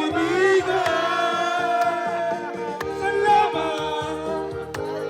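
A Tagalog ballad: a sung voice holds and bends long notes over a steady backing with a soft beat about once a second.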